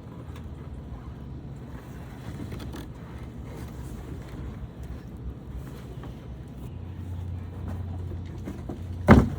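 Cardboard gift box being handled and opened, with faint scattered rustles and scrapes over a low steady hum, and one sharp loud thump from the box about nine seconds in.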